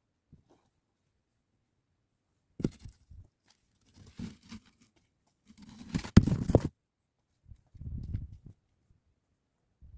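Scattered crunching and knocking handling sounds with short gaps between them. The loudest is a cluster with one sharp knock about six seconds in, followed by a softer stretch of low crunching.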